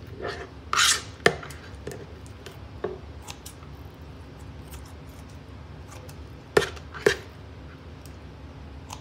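Kitchen shears snipping raw chicken cutlets on a cutting board: a few sharp snips and clicks, a pair about a second in and another pair about two-thirds of the way through, with quiet handling between.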